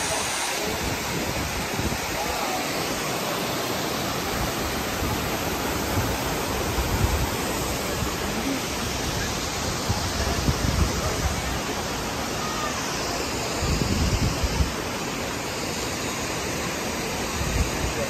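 Steady rushing of a waterfall and river rapids, with occasional low buffeting of wind on the microphone.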